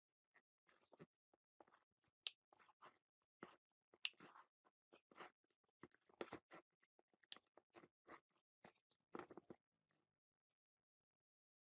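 Metal parts of an old electric chainsaw's gearbox clicking and scraping as a screwdriver pries at a gear inside the housing and the gears are handled. The clicks and scrapes come in an irregular run and stop about ten seconds in.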